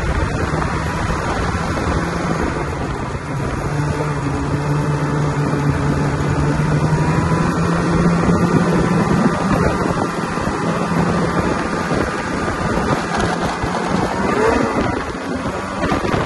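Snowmobile engine running at a steady cruising speed, its pitch holding mostly level with a slight rise about halfway through, heard from the rider's seat with wind noise on the microphone.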